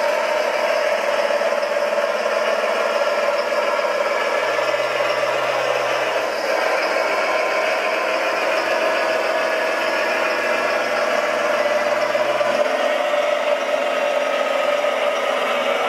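Radio-controlled model hydraulic excavator running: a steady engine-like drone with rattle. A lower hum joins about four seconds in and stops near the end.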